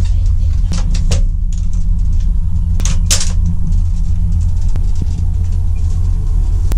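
Steady low rumble of an Irish Rail intercity train running, heard inside the carriage, with a few sharp clicks and rattles.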